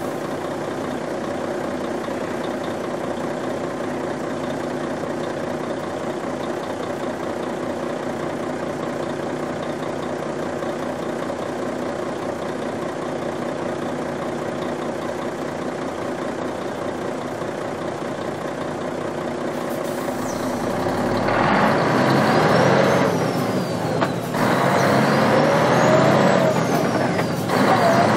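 Truck engine idling steadily, then pulling away about 20 seconds in. The engine note rises under acceleration, drops at a gear change, and climbs again, with a second shift near the end. A high whine rises and falls along with the engine.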